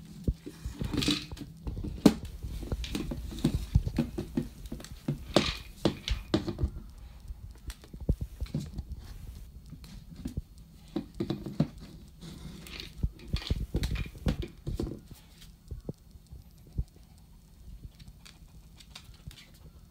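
A dog nosing and pushing a hard red rubber treat toy about on a tile floor: irregular knocks, bumps and scuffs that thin out after about fifteen seconds.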